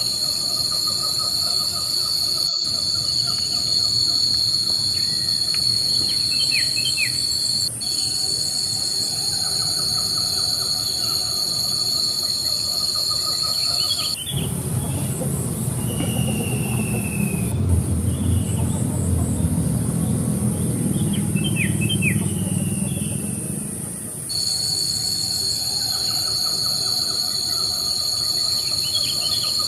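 Insects droning steadily in several high, even tones, with short bird chirps now and then. About halfway through, the insect drone cuts out for roughly ten seconds and a low rumble takes its place, with one thin gliding whistle, before the drone returns.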